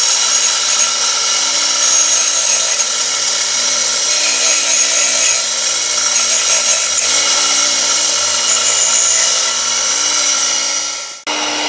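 Six-inch bench grinder running steadily with a buffing wheel, a chrome-plated faucet part held lightly against it to polish it: a steady whine with a high hiss. The sound drops out sharply for a moment near the end.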